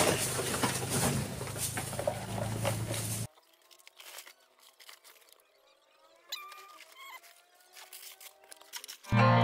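Rustling and crackling of plastic trash and debris being handled, with many small clicks. It cuts off abruptly about three seconds in to near quiet with faint thin tones, and music starts at the very end.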